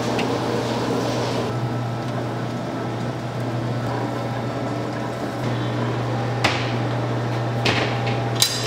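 Steady low machine hum, with a few sharp knocks near the end.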